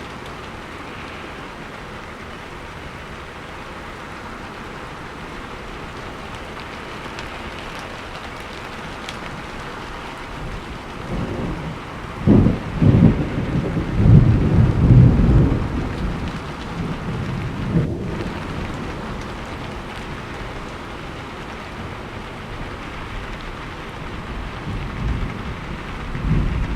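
Steady rain falling, with a long low rumble of thunder building about eleven seconds in, loudest for several seconds, then fading away. A smaller rumble comes near the end.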